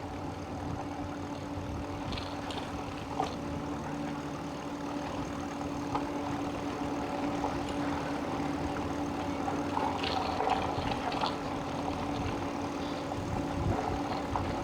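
Eahora e-bike riding along a road: a steady motor hum holding one tone, over tyre and wind noise.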